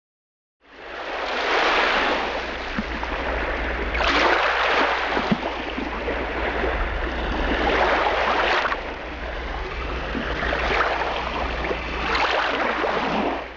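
Water rushing and splashing along the hull and wake of a yacht under way, swelling every two to four seconds, over a steady low hum.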